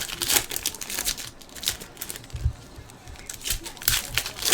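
Trading card packs and cards being handled: crinkling of foil pack wrappers and cards sliding against each other, with a few soft thumps against the table.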